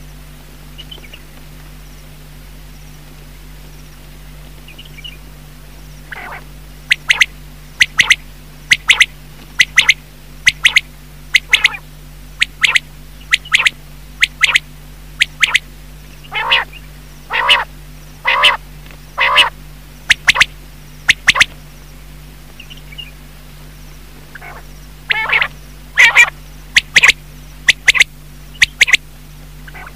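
Common quail calling: runs of short, sharp, repeated calls, about one or two a second, with a few seconds' pause before a final run. It is a call recording of the kind played to lure quail when hunting.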